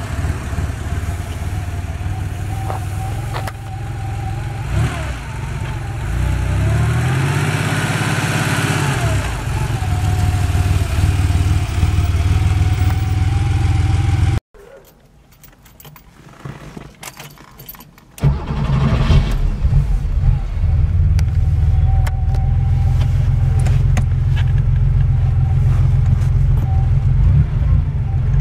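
1986 Porsche 911 Carrera's air-cooled flat-six engine driving past, revving up and easing off once partway through. About halfway through it drops suddenly to a quiet stretch with a few faint clicks. Then the engine is heard from inside the cabin, running steadily under way.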